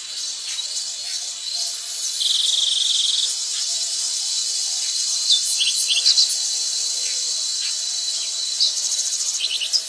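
A steady, high-pitched chorus of forest insects, with a few short bird chirps around the middle and near the end.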